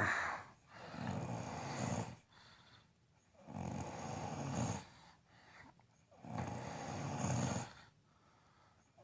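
Loud snoring: three long snores, each about a second and a half, coming evenly every two and a half to three seconds.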